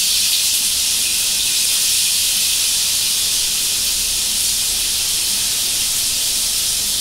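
Masala-coated seer fish (vanjaram) pieces sizzling in shallow hot oil in a nonstick pan on a low flame, a steady hiss as more pieces are laid in one by one.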